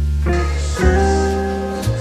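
Background music: plucked guitar chords over a steady bass, changing chord about every second.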